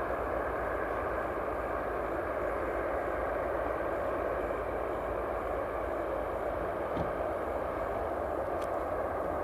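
Steady cabin noise inside an Airbus A319-100 airliner: the even hiss and rumble of its jet engines and airflow, with a faint click about seven seconds in.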